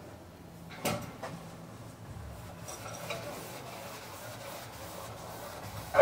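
Painting supplies being handled: brushes and paint things knocking together, with a short click about a second in and a sharper, louder knock at the end, over a low steady hum.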